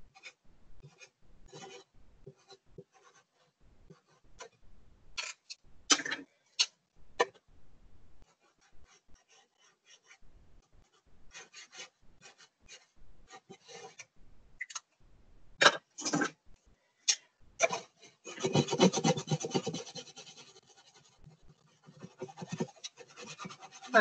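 Sharpie marker strokes rubbing and scratching on a plastic milk jug while it is colored in: many short scratchy strokes, then a longer, louder stretch of rubbing and handling noise about three quarters of the way through.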